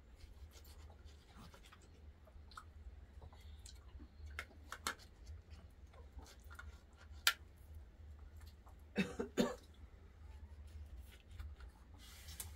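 Small handling sounds of peeling and eating oranges: scattered clicks, taps and scratches of fruit, peel and plates, with a sharp click about seven seconds in and two louder short sounds around nine seconds, over a steady low hum.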